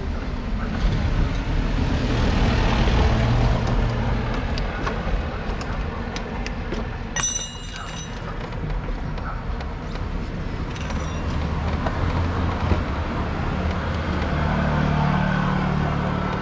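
Street traffic: the engines of passing vehicles run with a steady low hum and road noise that swells and fades. There is a short high-pitched squeal about seven seconds in.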